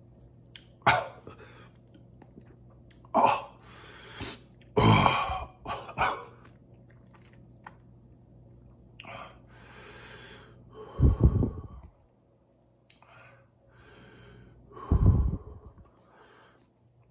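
A man's mouth and breathing sounds while tasting very hot sauce: smacking, short sharp breaths and puffs in a scattered series, with two heavier low throat sounds, one past the middle and one near the end.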